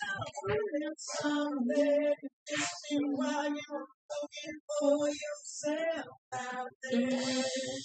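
A high voice singing a song in short phrases of held notes, with brief pauses between the phrases.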